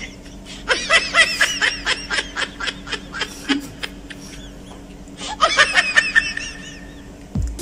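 High-pitched giggling laughter in two bouts of quick, rising-and-falling syllables, the second bout shorter, over a steady low hum.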